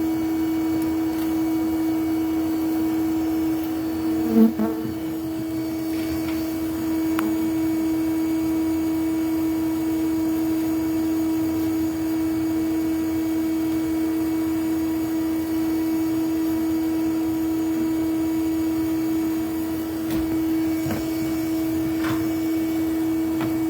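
A vacuum motor runs steadily with an unchanging hum, as a bee vacuum does during a live hive extraction. A single short knock sounds about four seconds in.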